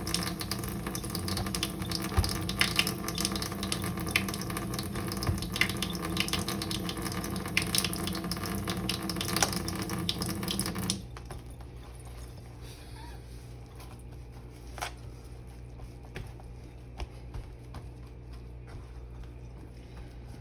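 Kitchen faucet running into a sink, cut off abruptly about halfway through; afterwards only a low background with a few light taps.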